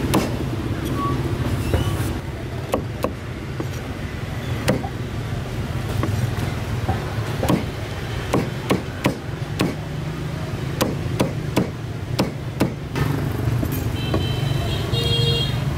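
Cleaver chopping through roast pork leg, skin and bone, on a thick round chopping block: irregular heavy chops, some in quick runs of three or four, that stop about thirteen seconds in. A steady low hum runs underneath.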